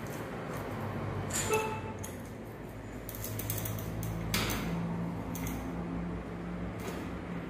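Bicycle chain and rear wheel parts clinking and rattling as the wheel is worked back into the frame with the chain over the cassette. There are a few sharp metallic clicks, including one short ringing ping about a second and a half in, over a steady low hum.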